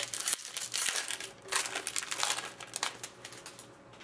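Foil wrapper of an Upper Deck hockey card pack being torn open and crinkled, a run of crackly bursts that dies away about three seconds in.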